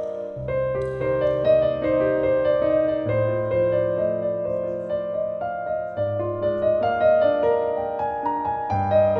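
Slow background piano music, its bass note changing about every three seconds under sustained chords.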